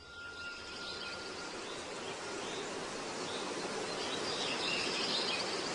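Outdoor nature ambience: a steady hiss that slowly grows louder, with faint high chirps.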